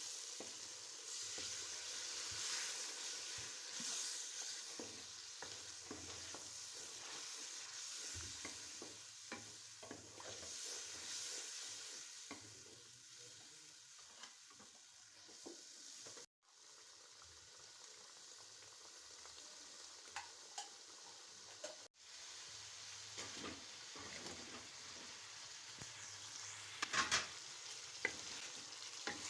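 Chicken pieces frying in oil in a karahi, sizzling steadily while being stirred, with scattered scrapes and clicks of the spoon against the pan, busiest near the end. The sound cuts out briefly twice.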